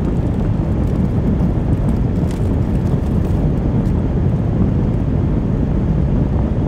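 Steady low rumble of a car heard from inside its cabin, even and unchanging, with a few faint crackles.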